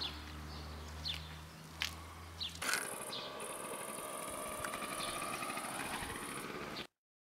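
Birds chirping over a steady low hum. About two and a half seconds in there is a cut to a steady hiss with a thin high whine, which stops abruptly shortly before the end.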